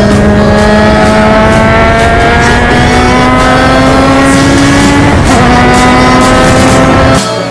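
Open-wheel formula race car's engine heard onboard at full throttle, its pitch climbing steadily through a long gear, dropping sharply with an upshift about five seconds in and climbing again. It cuts off abruptly just before the end.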